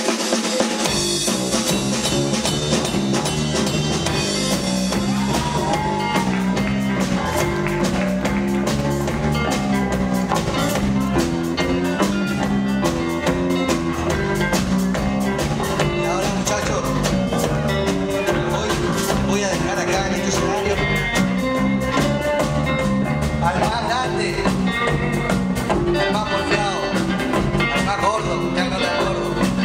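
Live rock band playing: a drum kit and an electric bass guitar, with the bass coming in about a second in.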